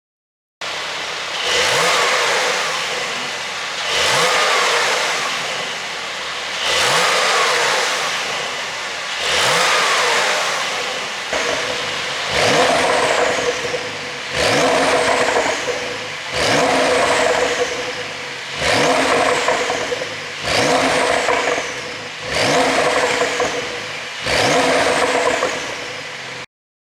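Porsche 911 Carrera 4 GTS twin-turbo flat-six revved about eleven times in a row, the pitch rising and falling with each blip, slower at first and quicker from about halfway. It crackles and pops as the revs drop, from its pop-and-crackle ECU tune.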